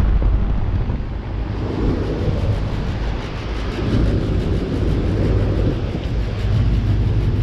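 Outdoor heat pump condensing units running in cooling mode: a steady low hum from the compressors under the even rush of air from the condenser fans, with some air buffeting the microphone.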